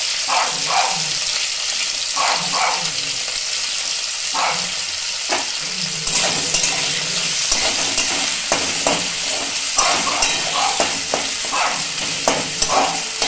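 Cauliflower and potato pieces frying in oil in a kadai with a steady sizzle, while a spatula scrapes and stirs them. The stirring strokes come more often in the second half.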